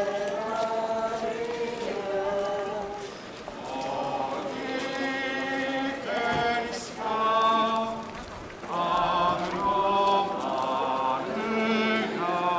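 A group of people singing a hymn together: long held notes in phrases, with short breaks between them.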